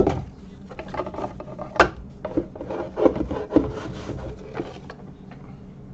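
Trading-card packaging being handled on a table: irregular rubbing and rustling of cardboard and foil packs, with a few light knocks, the sharpest right at the start and another about two seconds in.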